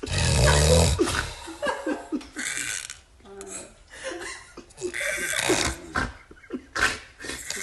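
A person snoring with a rough, chainsaw-like rasp: one long rattling snore in the first second, then a run of shorter, irregular snorts and gurgling breaths.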